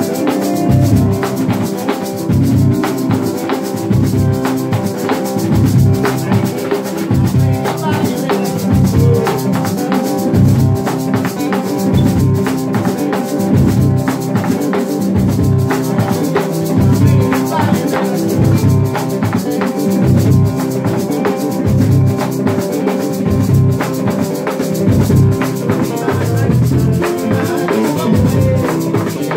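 Live band playing a steady groove on hand drums, including a large rope-tensioned wooden drum and a conga, with maracas shaking over electric bass and acoustic guitar.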